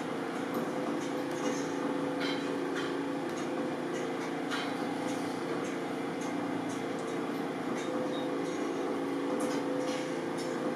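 A steady machine-like hum, with faint scattered ticks and scratches from hand-stitching a leather cricket ball's seam with an awl and thread.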